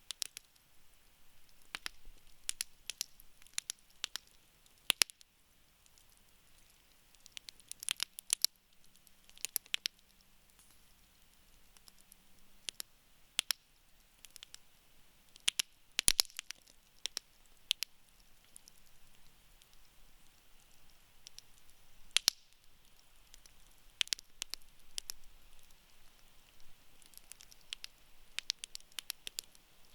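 Wood campfire crackling: irregular sharp pops and snaps, some coming in quick clusters, over a faint steady hiss of the burning wood.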